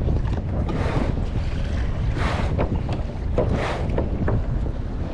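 Wind buffeting the microphone as a steady low rumble, with three short swells of water splashing against the kayak's hull.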